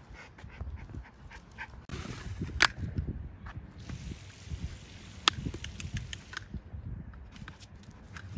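Miniature Schnauzer on a leash walk, moving about and sniffing. Scattered small clicks and ticks run over a low rumbling noise, with two sharper clicks about two and a half and five seconds in.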